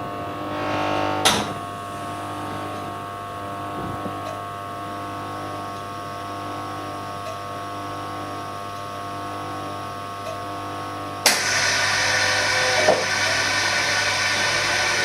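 S007 phone-screen vacuum laminator and bubble remover running its cycle with a steady hum; a click about a second in. About eleven seconds in it switches with a sharp click to a louder, steady hissing rush of air.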